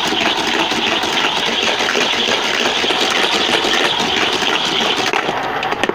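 A small motor whirring steadily with a fast, even mechanical buzz.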